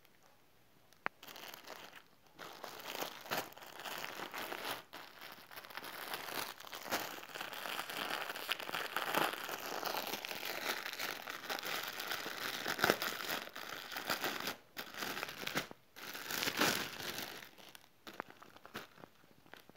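Clear plastic garment bags crinkling and rustling as packets of children's clothes are handled and shifted, in irregular spells with a few short pauses.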